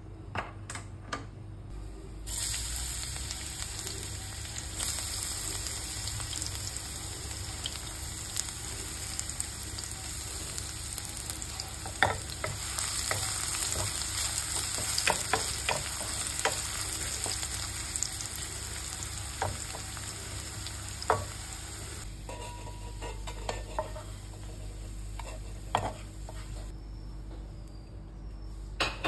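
Sliced garlic sizzling in hot oil in a stainless steel frying pan, stirred with a wooden spatula that knocks and scrapes against the pan now and then. The sizzle starts about two seconds in and dies down well before the end.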